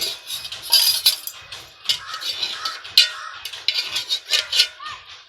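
Clinking and scraping of a spoon against a metal dish as warm food is mixed for hand-feeding a parrot chick, with a few short squeaky calls about two seconds in and again near the end.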